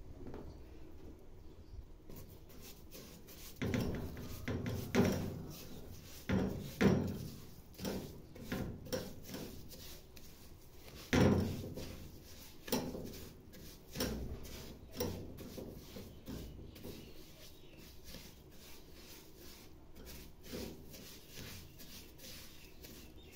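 A silicone spatula stirring and scraping grainy sugar in oil around the bottom of a metal pot, in irregular knocks and scrapes. It starts about four seconds in, is busiest in the first half and grows faint near the end.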